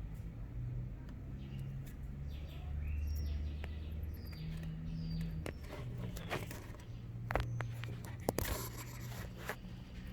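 African pygmy hedgehog chewing crickets, with a few sharp crunching clicks about seven to nine seconds in. Short falling bird chirps sound through the first half over a low hum.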